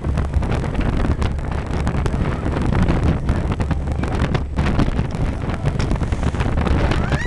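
Wind buffeting the microphone on a boat at sea: a steady, gusty rumble.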